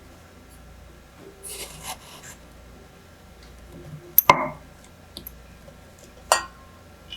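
Small household handling sounds: a brief rub or scrape, then two sharp knocks of objects set down or tapped together.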